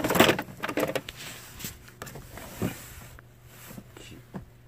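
Handling noise while working on a car's plastic wheel-arch liner with hand tools: loud rustling and scraping in the first second, then quieter scattered clicks and taps.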